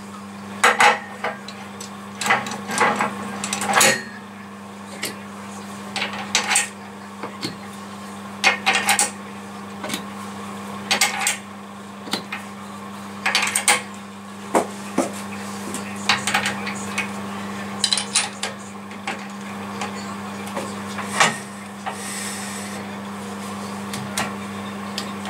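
Irregular metallic clanks and clicks from fitting a jawed scroll chuck onto a wood lathe's headstock spindle and tightening its jaws on a log with the chuck key, over a steady low hum.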